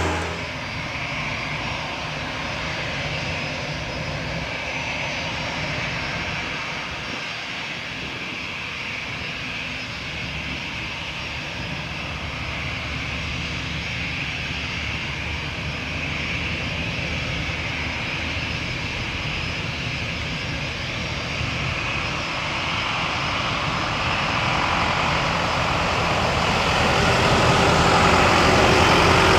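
Airbus A320-214's CFM56 turbofan engines running at taxi power as the airliner taxis toward the listener, a steady jet whine that grows louder over the last several seconds.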